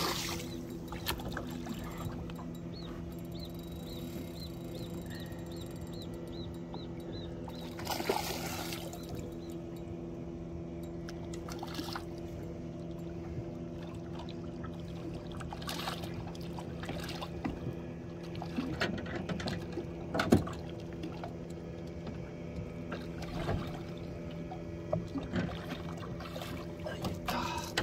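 Water splashing and pouring as a hooked yellow catfish is brought alongside a boat and gripped in the water, with a few sharp splashes standing out. A steady low hum runs underneath.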